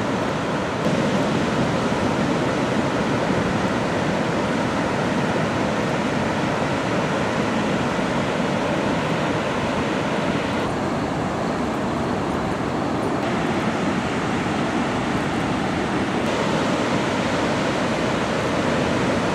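Ocean waves breaking in heavy shore-break surf, a steady rushing wash of water noise that shifts abruptly in tone a few times.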